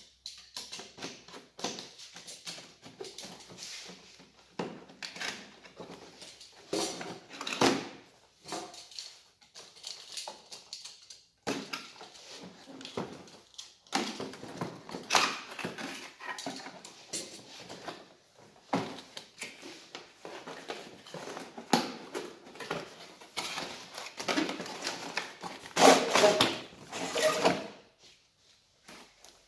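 Cardboard toy packaging being handled and unpacked: irregular rustling and scraping of cardboard, with light knocks on the bench, the loudest rustling burst near the end.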